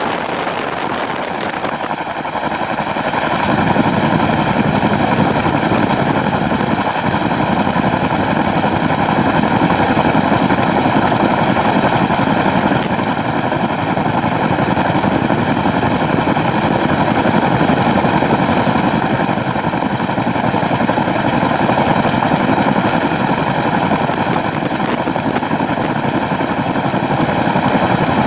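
CH-47D Chinook's twin turboshaft engines and tandem rotors, heard close up from a camera mounted on top of the fuselage: a loud, steady din with high whining tones over it, growing louder about three seconds in.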